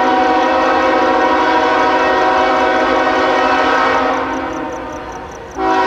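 Diesel locomotive horn sounding a long blast of several notes at once, which dies away about four seconds in; a second blast starts abruptly just before the end.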